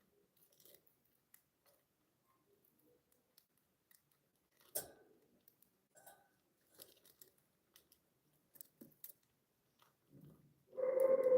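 Budgies pecking and cracking seed, with scattered small clicks and crunches and one sharper click about five seconds in. Near the end, a much louder pitched call begins.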